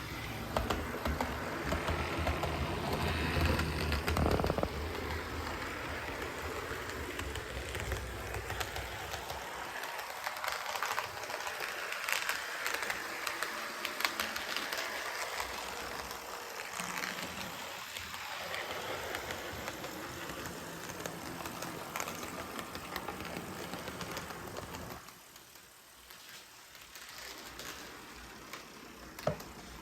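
HO-scale Bachmann/Mehano GP18 model diesel locomotive running on the track with a new budget motor: a steady whir of wheels and gears with scattered clicks. It gets clearly quieter about 25 seconds in.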